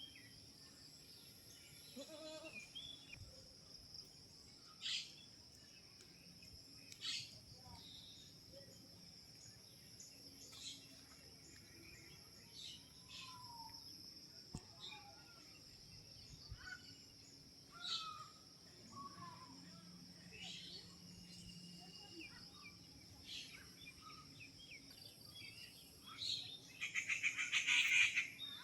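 Birds chirping and calling now and then over a steady high-pitched insect drone, with a louder rapid rattling call near the end.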